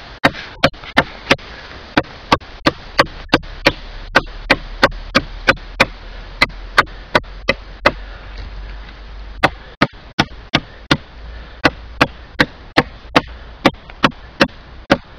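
Vityaz 'Burevestnik' fixed-blade knife chopping into a branch about 4 cm thick: sharp, regular strikes about three a second, with a short pause around the middle.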